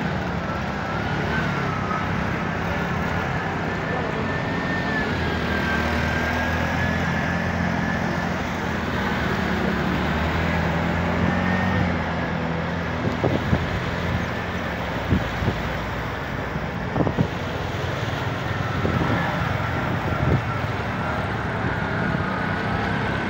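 Auto-rickshaw and car engines running steadily as the vehicles wade through a flooded road, over a continuous wash of water churned by the wheels. A few short knocks come in the second half.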